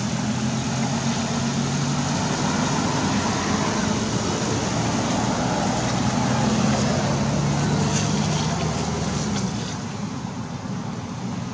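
Steady motor engine hum, swelling toward the middle and easing off near the end, with a few faint clicks.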